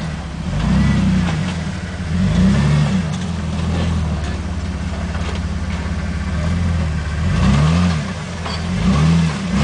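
Jeep TJ rock crawler's engine working under load through mud and rock, the revs swelling and dropping back about four times.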